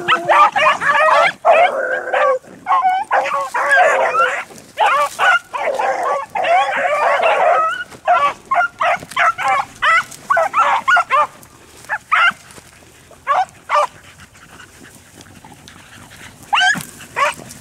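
Pack of beagles baying as they run a rabbit: many voices overlap in a dense chorus for the first several seconds, then thin to scattered single bays. The cry dies down to a lull, and the pack opens up again near the end.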